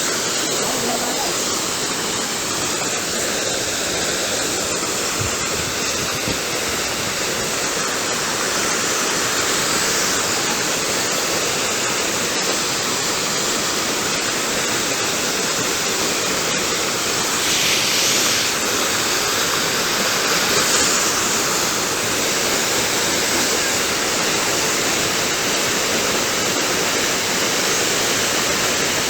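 Waterfall pouring steadily, a continuous dense rush of falling water, with a brief louder rush about eighteen seconds in.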